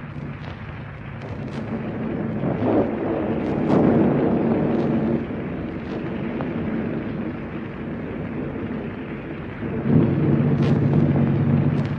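Thunderstorm sound effect: rolling thunder rumbling over steady rain, swelling about four seconds in and again near the end.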